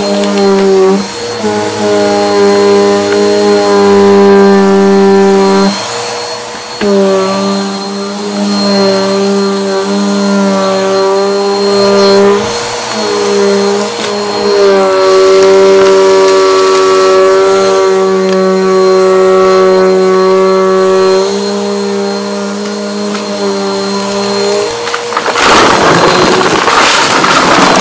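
Upright bagless vacuum cleaner running with a loud, steady motor whine whose pitch dips and shifts briefly a few times. Near the end comes a loud rattling crunch as it sucks up a pile of small hard debris from a rug.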